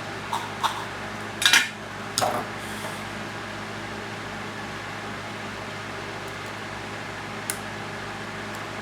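Small metal clicks and clatters of hand tools being handled at a soldering bench: several in the first three seconds, the loudest about a second and a half in, and one more near the end. A steady electrical hum runs underneath.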